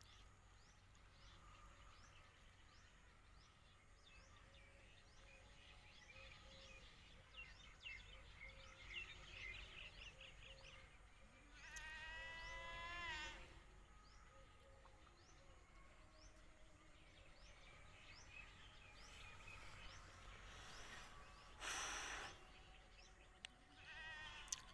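Faint outdoor ambience with many small bird chirps repeating throughout. Halfway through comes one longer animal call that falls in pitch, and near the end a brief rush of noise.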